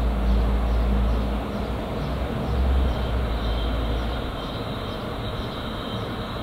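Double-deck regional passenger train approaching along the main line: a steady distant running noise, with a deep rumble through the first four seconds that then dies away, and a faint high whine joining about three seconds in.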